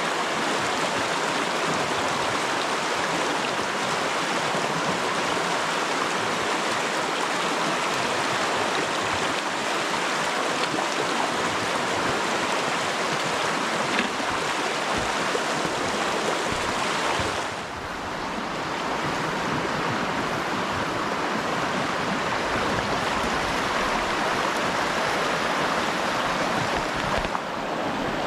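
River water rushing steadily, with a brief drop in loudness about two-thirds of the way through.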